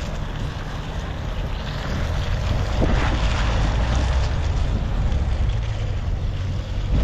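Wind buffeting the microphone over the steady low rumble of a vehicle on the move, with a single knock about three seconds in.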